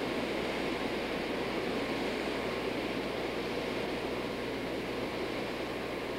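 Steady, even background hiss with a faint low hum underneath and no distinct sounds standing out.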